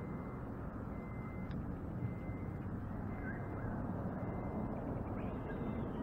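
Steady low outdoor background noise with a few faint, short bird chirps.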